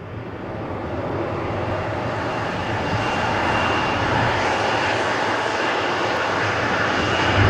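Jet engines of an American Eagle Bombardier CRJ regional jet taxiing past: a steady rushing noise that builds slowly, with a faint high whine at times.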